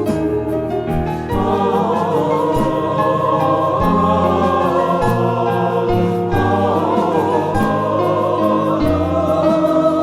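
A choir singing in harmony with instrumental accompaniment, the voices swelling in about a second in.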